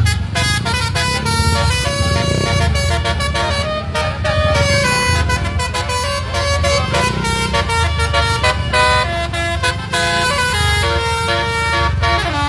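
Basuri multi-tone musical air horn playing a quick telolet tune: many clear horn notes stepping up and down in pitch over a low rumble.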